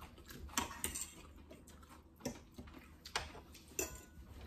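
Forks clinking and tapping against plates: a handful of light, separate clicks.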